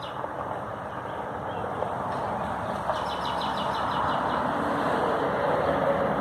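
A road vehicle approaching, its engine and tyre noise growing steadily louder. About three seconds in, a bird gives a quick run of high chirps.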